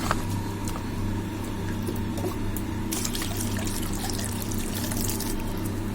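Ground crab juice trickling steadily through a strainer into a bowl, with a few faint clicks.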